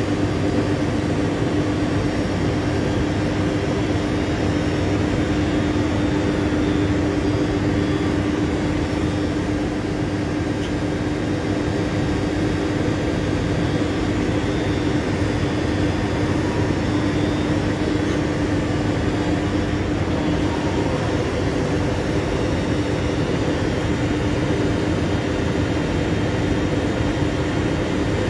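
Z 50000 Francilien electric train standing at the platform with its doors open, its ventilation and auxiliary equipment giving a steady, unbroken hum.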